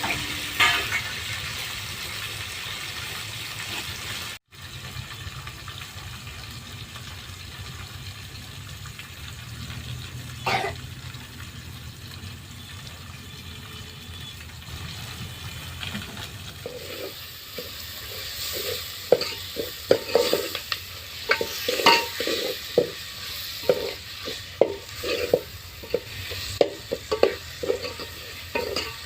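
Food sizzling as it fries in a pan, with a brief break about four seconds in. From a little past halfway, quick repeated scrapes and knocks of a spoon against the pan as the food is stirred.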